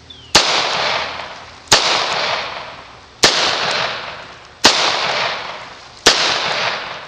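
Five gunshots from an I.N.A. Tiger .38 Special five-shot revolver, fired at an even pace about one and a half seconds apart, each trailing off in a long echo.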